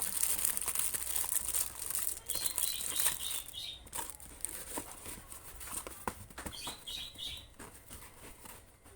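Plastic packaging rustling and crinkling as small parts are handled and packed, with light clicks and taps; it grows quieter toward the end.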